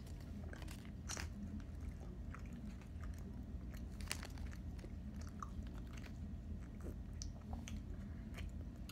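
A soft chocolate-and-caramel Milky Way bar being chewed, with scattered small clicks and crackles from the mouth and the plastic wrapper being handled.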